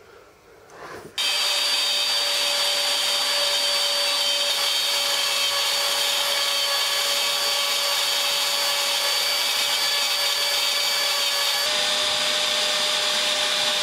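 Bosch GFK 600 trim router serving as a CNC spindle, switched on about a second in and then running steadily with a high whine over a hiss, its end mill at 8 mm 6082-T6 aluminium plate. The pitch steps slightly near the end.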